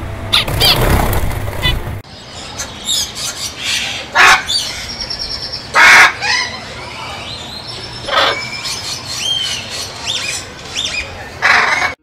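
Blue-headed parrot calling: four loud, harsh squawks a couple of seconds apart, with thinner chirps and whistles from other birds between them. A low rumbling noise in the first two seconds cuts off suddenly.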